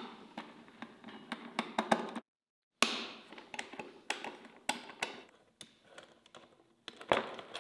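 Irregular light metallic clicks and taps of an 8 mm wrench on the bolts holding the plastic radiator shroud of a Honda CR125 motocross bike, as the bolts are undone by hand. The sound drops out completely for about half a second a little over two seconds in.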